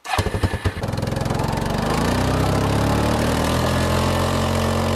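An Arctic Cat ATV engine starts with a second of rough, uneven firing and then runs steadily, pulling under load as it tows a van.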